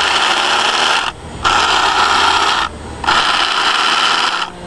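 Small battery-powered electric motor and gear drive of a 1950s toy remote-control car whirring loudly, switched on and off three times in runs of about a second or so each.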